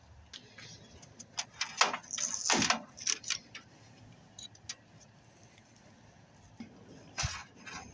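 Clicking and rattling of wires and small connectors being pulled off the sheet-steel back panel of a flat-screen TV, loudest about two seconds in, with another short clatter near the end.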